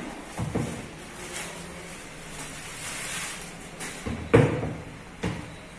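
A hard plastic carrying case being handled and set down on a table: a few knocks and bumps, the loudest about four and a half seconds in, with a rustle of plastic wrapping between them.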